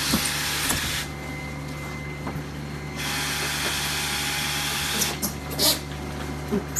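A steady low machine hum with stretches of hissing noise: the hiss stops about a second in, comes back at about three seconds and stops again at about five. A few clicks and rustles follow near the end.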